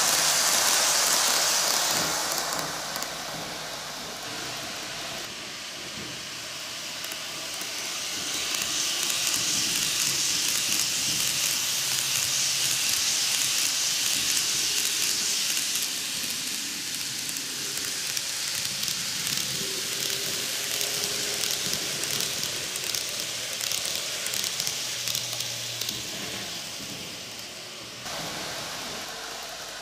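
Ten-car N-gauge model train rolling on curved TOMIX cant track: a steady rushing hiss of metal wheels on the rails and motor whir. It swells as the cars pass close by about eight seconds in, then fades as the train pulls away, dropping off near the end.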